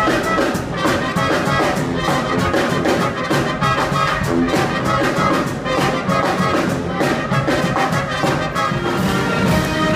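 A Marine Corps brass band playing live: trumpets, trombones, saxophones and sousaphone over a steady beat of bass and snare drums.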